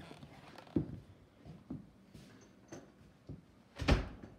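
Footsteps and handling knocks from a hand-held camera while walking in a house: a few soft thumps about a second apart, with one louder, sharper knock near the end.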